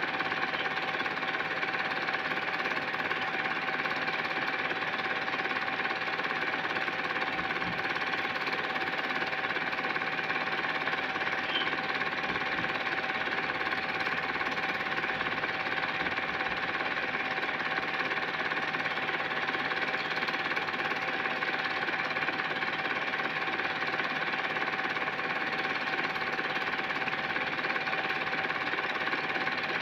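Home-movie film projector running: a steady, even mechanical clatter and whir from the film advancing through the mechanism, with a faint steady tone over it.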